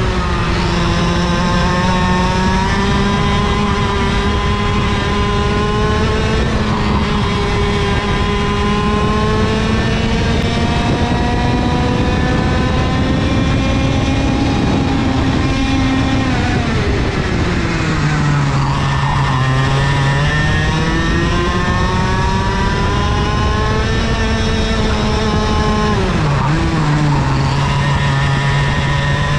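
IAME KA100 100cc two-stroke kart engine at racing speed, heard from onboard: it climbs slowly in pitch for about sixteen seconds, falls sharply as the kart slows, then picks up again, with a second short dip near the end.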